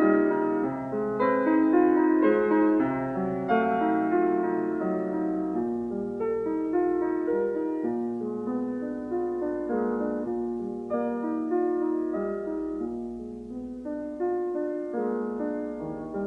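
Background piano music: calm notes and chords played at a gentle, even pace.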